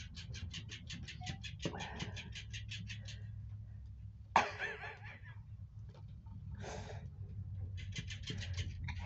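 Electric flopping-fish cat toy flapping its tail, a fast even ticking of about four to five flaps a second that stops about three seconds in and starts again near the end. One loud, short sound cuts in about four seconds in.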